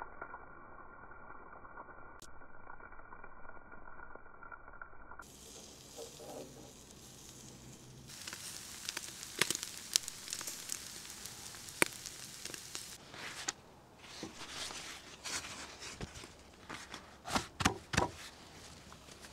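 Sturgeon kebabs on metal skewers sizzling over charcoal embers. The sound is muffled for the first few seconds, then from about eight seconds in becomes a sizzle with many sharp crackles and pops, a few of them louder near the end.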